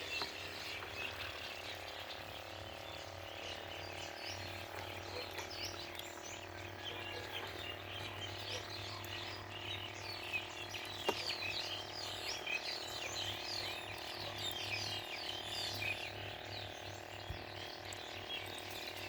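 A chorus of frogs and birds, with many short chirping calls overlapping throughout over a faint steady hum. There is one sharp click about eleven seconds in.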